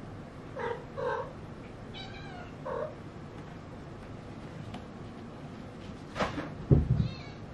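Maine Coon kittens meowing: four short calls in the first three seconds, some with a warbling, chirp-like pitch. Near the end comes a loud knock and thump, followed by one more warbling call.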